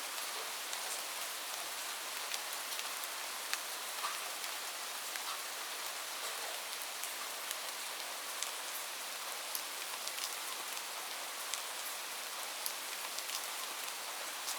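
Light rain falling steadily, a soft hiss with many separate drops ticking sharply on a surface.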